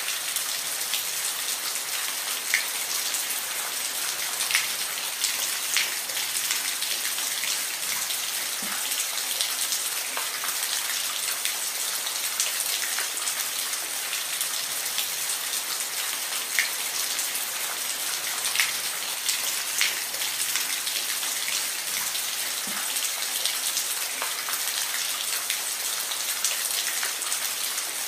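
Steady rain falling on a surface, a continuous hiss with individual drops ticking through it.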